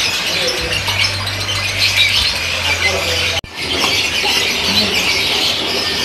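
Many caged lovebirds chattering together, a dense stream of short, high, shrill chirps and squawks with no pause. The sound drops out for an instant a little past halfway, then the chatter carries on.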